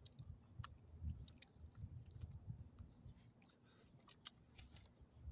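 Small dog chewing and licking up tiny pieces of chicken from a hand: a string of soft, irregular mouth clicks and smacks.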